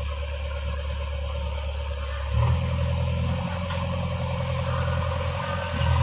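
Diesel engine of a JCB backhoe loader running low and steady, then revving up about two and a half seconds in and holding the higher revs as the machine moves off.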